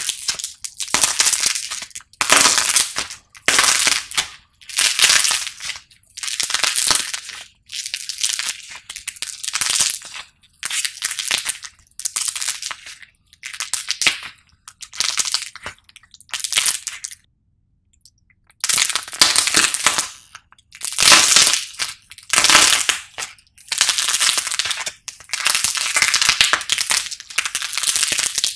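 A dried clay figure with a painted shell and a white, crumbly core is crushed and torn apart by hand: repeated crunchy crackling squeezes, about one a second, with a short pause a little past the middle.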